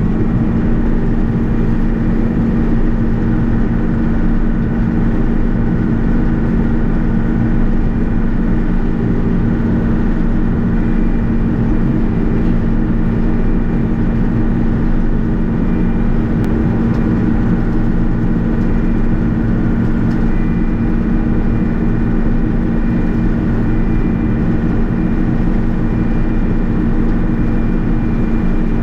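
John Deere 6620 combine's diesel engine running steadily, a constant drone at one even pitch.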